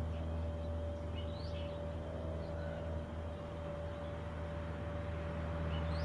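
A few short, faint bird chirps, a cluster about a second in and another near the end, over a steady low hum with a held tone.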